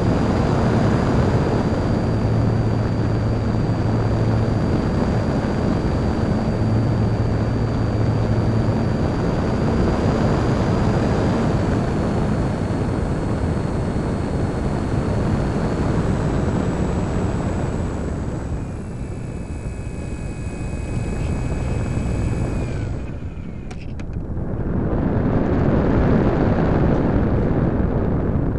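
Onboard sound of a Parkzone Radian electric glider under power: its brushless motor and folding propeller running with a thin, steady high whine over loud wind rush. About two-thirds of the way through the sound drops and changes to a few different whining tones, and after a brief dip the whine is gone, leaving only wind rushing past the airframe as it glides with the motor off.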